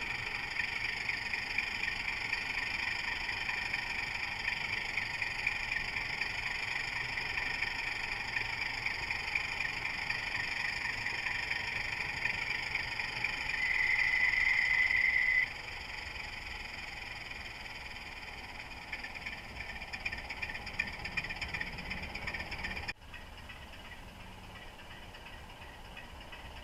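Model train running along the track, heard from a camera riding on it: a steady high mechanical whine with light scattered clicks. A louder high tone comes in for about two seconds midway, and near the end the whole sound drops suddenly quieter.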